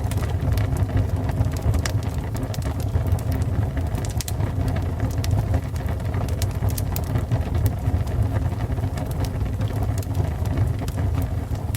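Fire burning: a steady low roar of flames with frequent, irregular sharp crackles and pops of burning wood.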